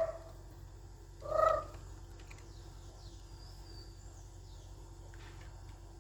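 A single short vocal sound, about half a second long, about a second and a half in, with a quiet steady hum around it.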